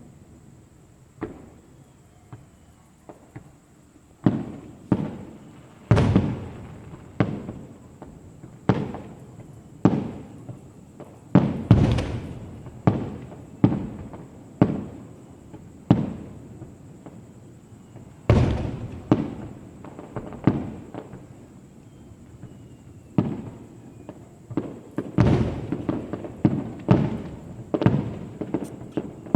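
Fireworks display: a string of aerial shell bursts, each a sharp bang followed by an echoing rumble, a second or two apart. A few small pops come first, then bigger bangs from about four seconds in, coming thicker near the end.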